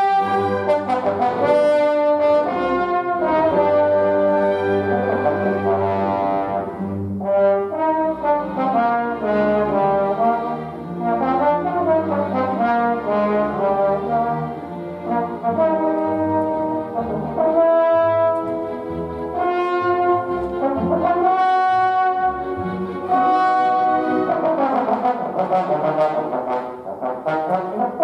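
A solo trombone plays a concertino melody of many changing notes, with a symphony orchestra accompanying.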